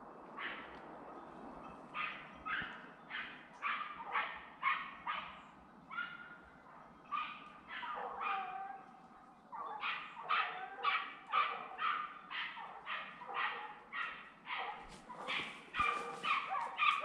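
Jagdterriers barking in quick runs of about two to three barks a second, with a few longer, lower yelps around the middle. These are hunting dogs baying at a wild boar they are holding at bay.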